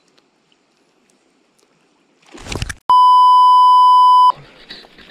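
A loud, steady electronic beep on one high pitch, lasting about a second and a half: a censor-style bleep tone dubbed over the audio. Just before it comes a short rushing thump, and after it faint outdoor wind and water noise.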